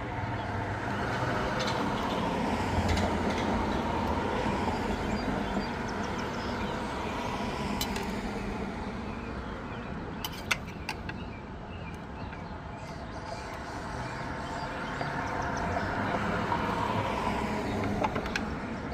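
Vehicle engine running, its sound swelling louder twice and easing off in between, with a single sharp click about ten seconds in.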